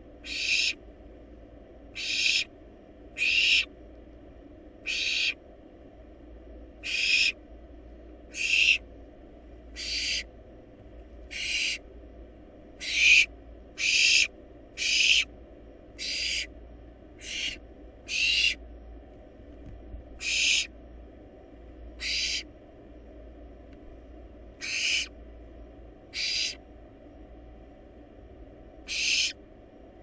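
Barn owl giving short, harsh hissing calls, each about half a second long, repeated irregularly every second or two, about nineteen in all. A faint steady low hum runs underneath.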